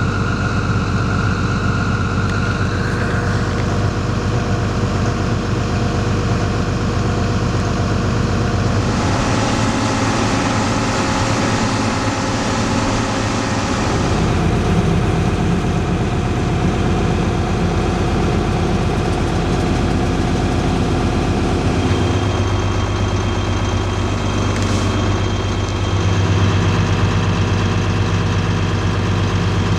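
Heavy diesel farm machinery running steadily, with an added hissing layer for several seconds near the middle and shifts in the engine note later on.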